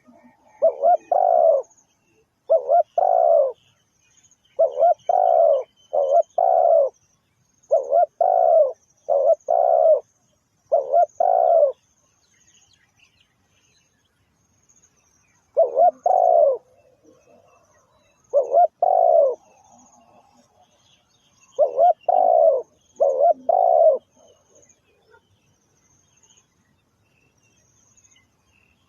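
Spotted dove cooing: repeated phrases of two or three deep, hooting coo notes, about one phrase every two seconds, with a pause of about four seconds midway. Faint high chirping runs underneath.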